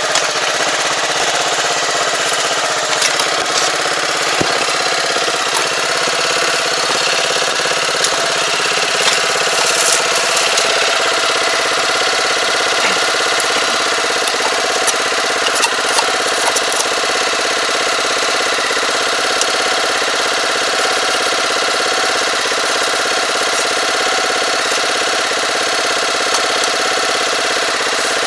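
Small engine of a tobacco transplanting machine idling steadily, with a few light clicks over it.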